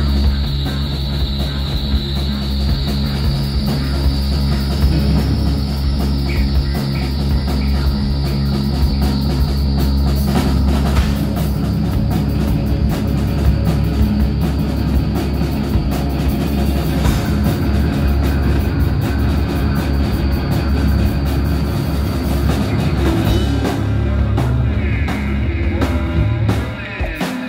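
Live rock band playing loudly: electric guitars, bass guitar and a Tama drum kit together in a dense, continuous wall of sound that thins out and drops back briefly near the end.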